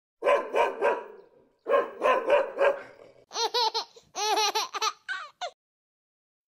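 A dog barking in two groups of three quick barks, then a run of higher-pitched whining yips that stops well before the end.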